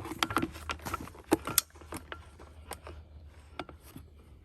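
Irregular metallic clinks, rattles and knocks from a chainsaw and its vertical mini-mill attachment being handled and fitted, with two sharp knocks about a second and a half in, then thinning out. The saw is not running.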